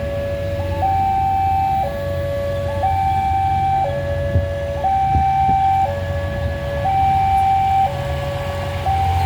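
Level-crossing warning alarm sounding a steady two-tone hi-lo pattern, a lower and a higher note alternating about once a second, over a low engine rumble.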